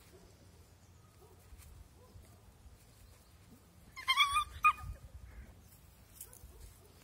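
A puppy lets out a short, high yelp in two quick parts about four seconds in, during rough play-fighting with another puppy.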